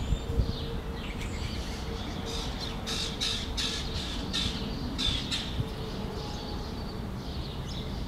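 Small songbirds chirping at a feeder: a quick run of about ten short chirps between about two and five and a half seconds in, over a steady low background rumble.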